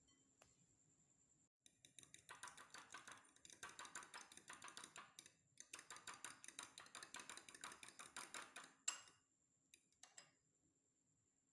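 A metal fork beating an egg in a glass bowl: rapid, even clinking of the fork against the glass, with a short pause midway. It stops about nine seconds in, after a last, sharper clink.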